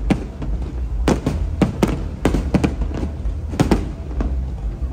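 Fireworks display: a rapid, irregular string of bangs from bursting aerial shells, about three a second, over a steady low rumble.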